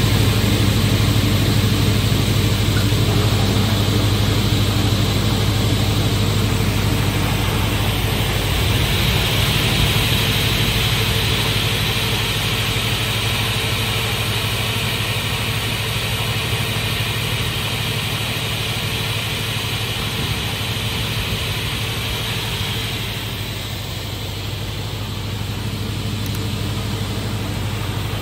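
Giuntini 300/100 crawler-feed multirip saw, with a 22 kW motor, running with a steady low hum. A broad hiss builds up about a third of the way in and eases off near the end.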